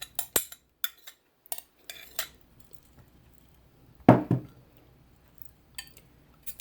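Kitchen utensils clinking against dishes: several light clicks and taps in the first two seconds, then one louder, duller thump about four seconds in, and a couple of faint ticks near the end.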